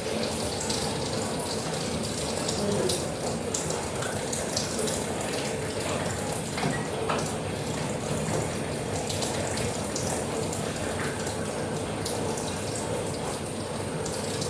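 Steady rain falling, with many small splashes of drops through it.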